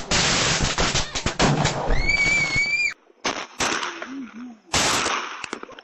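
Fireworks going off: a dense rapid crackle of bangs with a high whistle near two seconds in. After an abrupt cut come several separate loud bangs.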